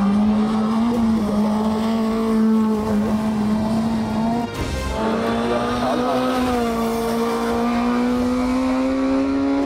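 Hill-climb race car engine held at high revs, a steady note that rises slowly; it breaks off briefly about halfway through and comes back.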